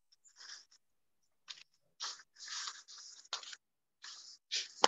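Irregular scraping and rustling close to a microphone, in short uneven patches, ending in one sharp click. The sound is typical of a phone or microphone being handled.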